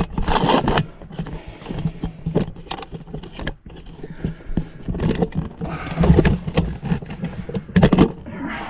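Irregular scraping and rustling as a person crawls into a narrow rock opening, clothing and gear rubbing and knocking against rock, with louder scrapes near the start and again about six seconds in.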